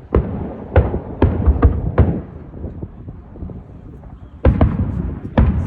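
Fireworks bursting overhead: a run of about five sharp bangs in the first two seconds, then another cluster of bangs from about four and a half seconds in, each with a low rumbling tail.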